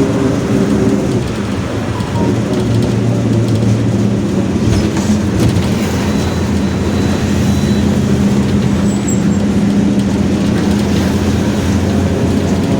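Mercedes-Benz OF-1721 city bus heard from inside while driving: its diesel engine runs with a steady low note under dense road and body rumble, and the differential growls. The engine note shifts about a second in, then holds steady.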